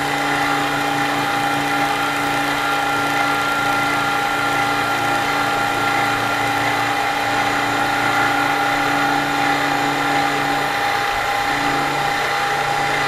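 Milling machine spindle running with an end mill taking a light climb-milling cut, about two thousandths deep, around the pivot area of a metal folding-knife liner: a steady hum with a steady high whine over cutting noise. The low hum briefly drops out about eleven seconds in.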